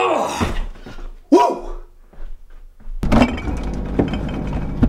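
A man grunting with effort during pull-ups, two strained grunts. After an abrupt change about three seconds in, objects clatter and knock as kitchen cupboards are rummaged through, over a steady low hum.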